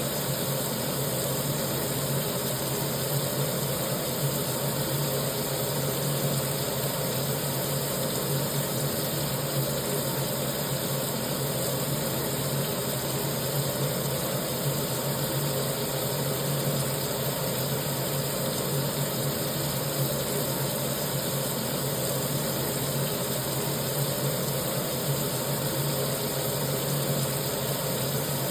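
Kitchen sink tap running steadily: an even, unbroken rush of water with a low hum underneath.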